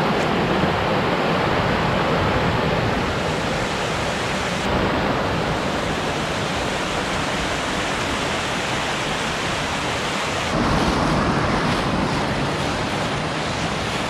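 Steady rushing hiss of a waterfall and creek. It grows louder and fuller about ten and a half seconds in.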